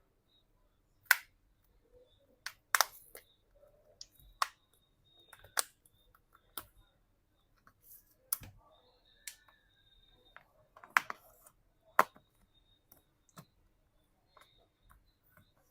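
Plastic back-cover clips of a smartphone snapping loose one by one as the cover is pried open around its edge: about a dozen sharp clicks at irregular intervals.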